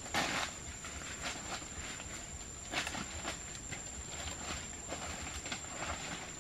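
Bare feet stepping through dry leaf litter and twigs on a forest path, irregular crunching and rustling steps, over a steady high whine.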